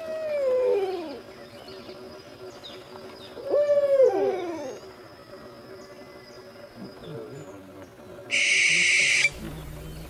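Owl hooting: two falling, wavering calls about a second long, one at the start and one at about three and a half seconds, each with a second, lower call overlapping it. Near the end comes a loud, high-pitched buzz lasting about a second.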